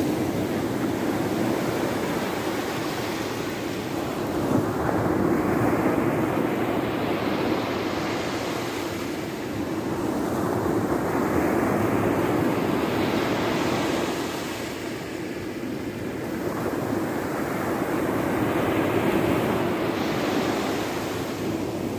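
Ocean surf breaking and washing up a sandy beach. The rush of water swells and falls back in slow waves, roughly every six or seven seconds.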